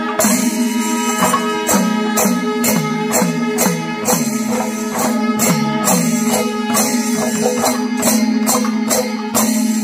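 Kerala temple-festival percussion ensemble playing: metal cymbals crash about twice a second over drums whose pitch slides downward, with a steady held tone underneath.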